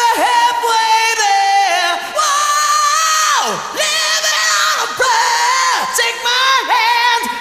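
Isolated male rock lead vocal with no band, belting high held notes without clear words, each phrase swooping down in pitch at its end.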